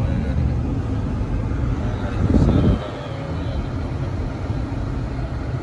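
Steady road and tyre rumble inside the cabin of a new Toyota RAV4 travelling at freeway speed. A short louder sound comes about two and a half seconds in, after which the rumble is a little quieter.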